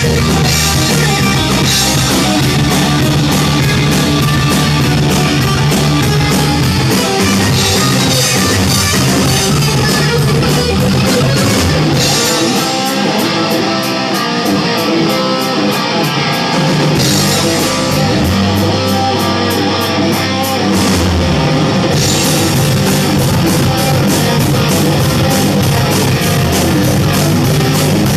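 Hard rock music with electric guitar, bass and drums; the bass drops away for a few seconds about halfway through, then comes back.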